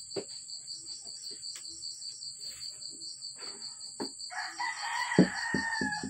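A rooster crowing once for about two seconds, starting a little past four seconds in, over a steady insect chorus that pulses about six times a second. A sharp knock during the crow is the loudest sound, followed by a few softer taps.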